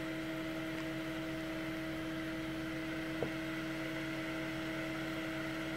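Longer Ray5 10 W diode laser engraver running during a cutting pass: a steady hum with a few held tones. One small click comes about three seconds in.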